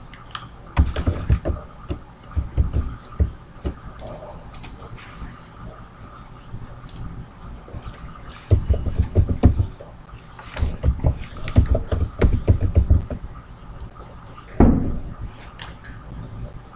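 Computer keyboard typing and mouse clicks, heard as irregular runs of dull knocks with a few sharper clicks. They are densest from about eight to thirteen seconds in, with one louder knock near the end.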